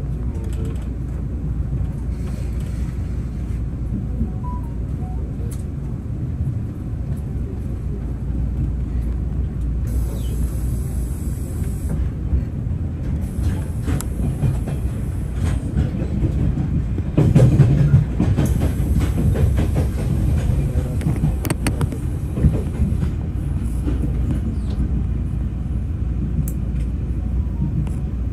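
A moving train heard from inside a passenger car: a steady low rumble of wheels on the track, with scattered clicks and knocks over the rails. It is loudest briefly about 17 seconds in.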